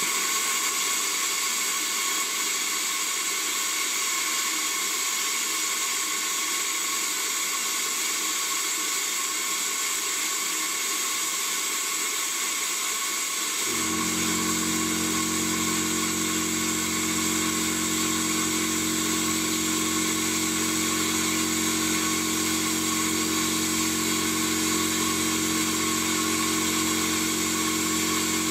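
Ideal Praktik 40 air plasma cutter cutting 5 mm mild steel: a steady hiss with a constant high whine. About halfway through, a low steady hum sets in suddenly.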